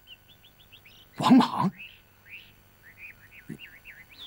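Small birds chirping, short quick calls repeated without pause. About a second in, a man's brief spoken phrase is the loudest sound.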